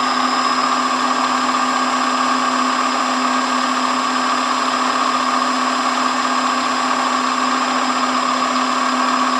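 Chevalier FM-2S vertical milling machine's 3 HP inverter variable-speed head running steadily, spindle turning with the quill on power feed: a steady hum with a higher whine.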